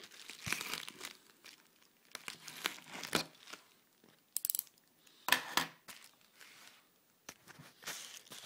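Shipping package and its wrapping being pulled open by hand: irregular bursts of crinkling, rustling and tearing with short pauses between them, loudest a little past the middle.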